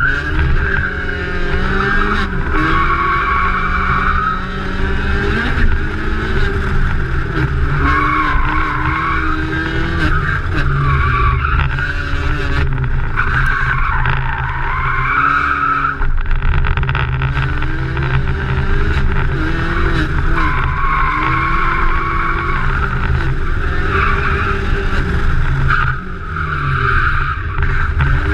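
Race-prepared car driven hard on a tarmac track, heard from outside beside the rear wheel: the engine revs up and down through the gears while the tyres squeal in several long stretches through the corners, over a low wind rumble on the microphone.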